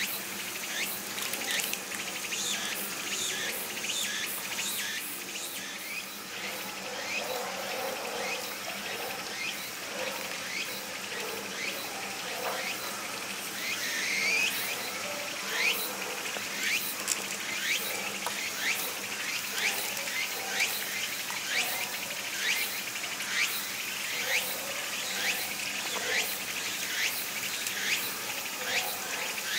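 Insects chirring in a continuous series of short, rising chirps, several every couple of seconds, growing more distinct about halfway through.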